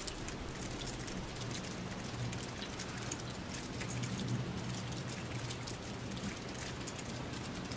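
Heavy rain falling: a dense, steady patter of many small drop impacts, with a low steady rumble underneath.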